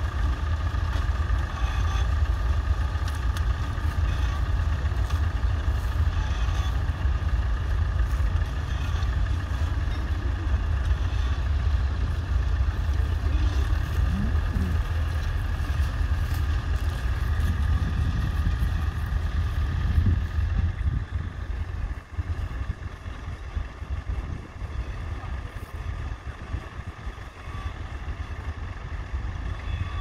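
Massey Ferguson 35 tractor engine running steadily under load while pulling a two-furrow mounted plough through the soil. It becomes noticeably quieter about two-thirds of the way through.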